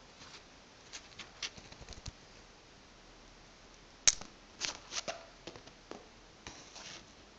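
Scattered light taps and rustles of a kitten playing with a feather wand toy on a mat, with one sharper click about four seconds in.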